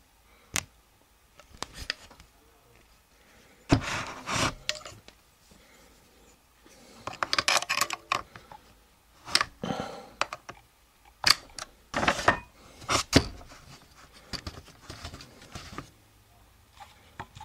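Metal clicks and short scrapes as a flat spanner wrench turns the knurled ring on a Charles Daly N4S 12-gauge shotgun's magazine tube, unscrewing it. Scattered single clicks alternate with several brief rasping bursts, the loudest about four seconds in and around twelve to thirteen seconds.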